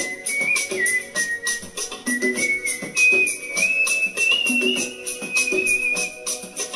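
A man whistling a Hindi film song melody into a handheld microphone, in long held notes that step higher about three seconds in. Under it runs a backing track with a steady shaker-like beat and repeating bass notes.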